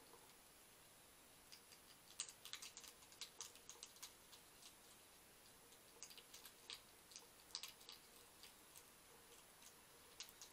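European hedgehog crunching dry kitten biscuits from a bowl: faint clusters of quick, crisp clicks in two spells of about two seconds each, with a few more near the end.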